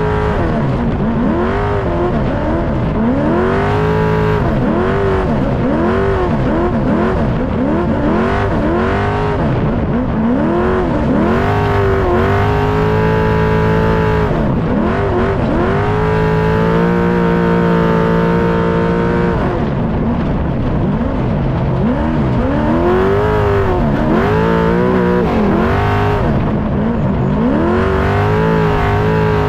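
Off-road race truck's engine heard from inside the cockpit, revving up and falling back over and over as the driver gets on and off the throttle. A little past halfway the revs hold steady for a few seconds before the rise and fall starts again.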